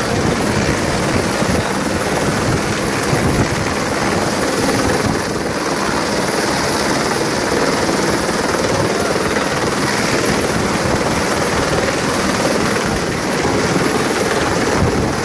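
Helicopter hovering close by: steady rotor chop and turbine noise, with no let-up.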